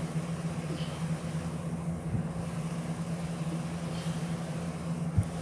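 A steady low hum with a noisy hiss over it, and a soft bump about five seconds in.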